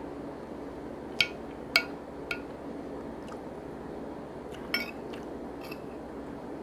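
An eating utensil clinking against a dish about five times, sharp ringing taps with the loudest two close together a little over a second in, over a steady low background hum.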